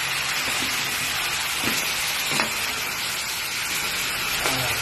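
Crabs sizzling in butter sauce in a wok as a spatula stirs them, with a few light knocks of the spatula against the shells and pan.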